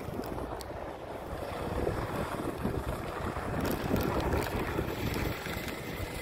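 Wind buffeting the microphone over the buzz of a go-kart engine out on the track, which gets louder after about two seconds as the kart comes closer.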